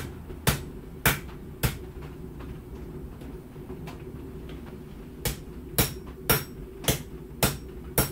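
Hand hammer striking hot steel on an anvil, about two blows a second: four blows, a pause of about three and a half seconds, then six more. Under the blows is the steady rush of a propane gas forge burner running.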